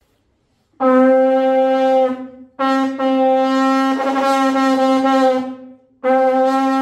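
Three long, steady horn blasts at the same pitch, starting about a second in, each held for one and a half to three seconds with short breaks between.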